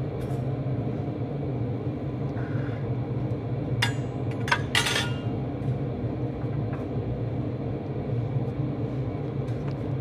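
Steady low mechanical hum with a few sharp clinks of kitchenware about four to five seconds in, the last clink the loudest.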